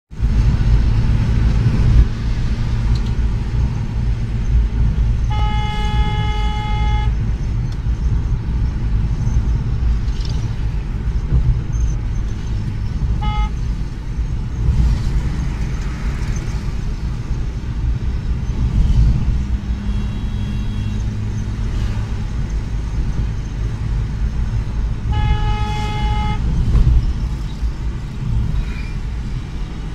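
Steady engine and road rumble inside a moving car's cabin, with a car horn honking three times: a long honk a few seconds in, a short toot near the middle, and another long honk later.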